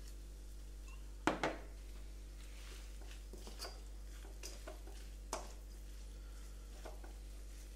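Wooden spatula stirring udon noodles and vegetables in a wok, with a few scattered clacks of the spatula against the pan. The loudest is a double knock about a second in, over a faint steady hum.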